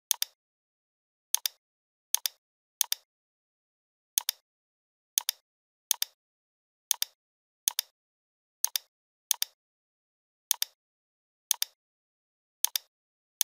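Computer mouse clicking about fourteen times at irregular intervals, each click a quick two-part tick of button press and release, with dead silence between clicks.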